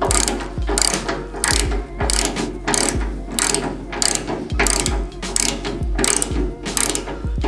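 Ratchet tool set to its tightening side, clicking in repeated back-and-forth strokes, about two a second, as it screws a valve into a radiator.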